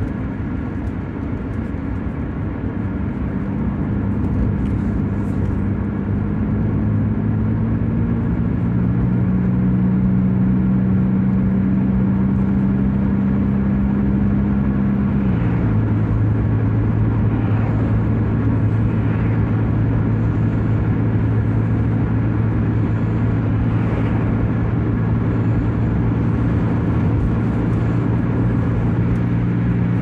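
A car driving at highway speed, heard from inside the cabin: a steady engine drone over road noise. The engine note climbs gradually over the first several seconds and steps down suddenly about halfway through.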